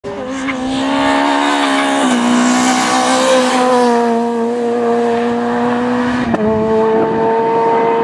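Renault Clio R3 rally car's 2.0-litre four-cylinder engine running hard at high revs. Its pitch steps down about two seconds in, and again after about six seconds with a sharp click.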